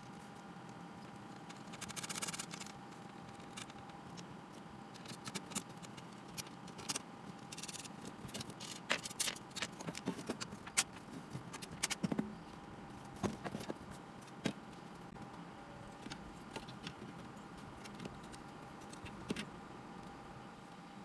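Irregular metallic clinks, taps and brief scrapes as a sheet-steel inverter case, its panel and loose screws are handled on a workbench, busiest in the middle, over a faint steady hum.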